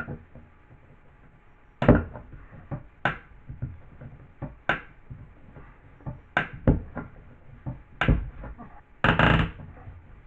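Irregular knocks and clatters of hand tools being handled, about a dozen separate hits, with a short, louder rattle near the end.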